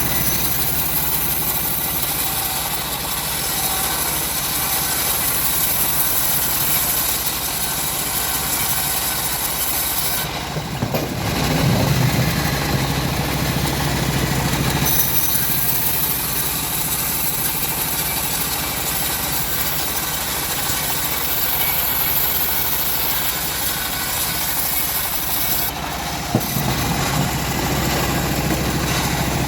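Homemade bandsaw mill running steadily, its engine and blade making a continuous machine drone, with the sound changing for a few seconds about ten seconds in and briefly again near the end.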